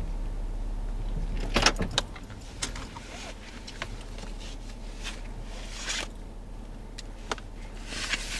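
Small handling noises inside a parked car over a steady low hum: a cluster of clicks and rattles about two seconds in, after which things go a little quieter, then scattered single clicks and short rustles.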